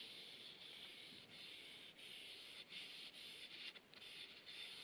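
Faint hiss of a cloth pad rubbing oil finish along a wooden hammer handle, with short irregular breaks as the strokes change.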